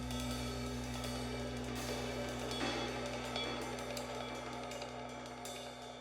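Background music with a drum kit, hi-hat and cymbals over held tones, slowly getting quieter.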